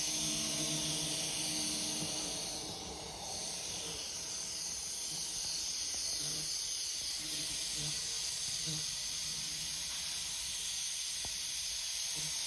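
Märklin Z-scale model electric locomotive running on its track: a steady high hiss with a faint low hum that comes and goes.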